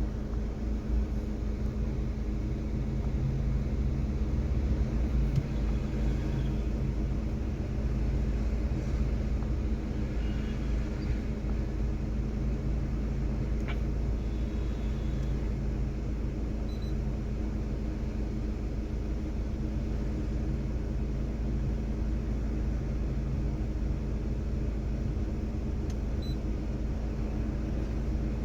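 Maruti Suzuki Swift Dzire engine idling steadily, with an even low rumble.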